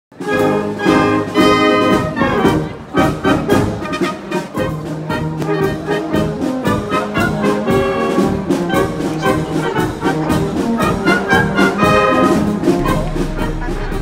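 Brass band playing a tune on trumpets, trombones and tubas over a steady beat. A low rumble joins near the end.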